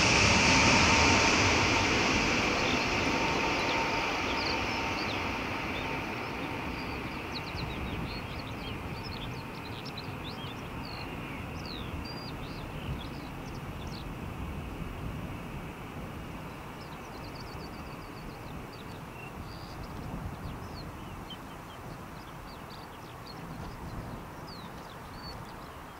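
Boeing E-3A Sentry's four TF33 turbofan engines passing low overhead, loud with a high whine, then fading steadily to a distant rumble as the aircraft moves away down the runway. The whine dies out within the first few seconds.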